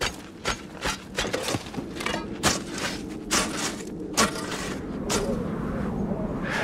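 Hand tools chipping and scraping at packed snow and ice: an irregular run of sharp crunching strikes, roughly two a second, over a steady low drone.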